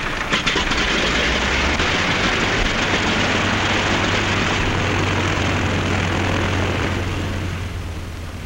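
Biplane's radial aircraft engine running loudly and steadily with the propeller turning, just started after the 'contact' call, easing off a little near the end.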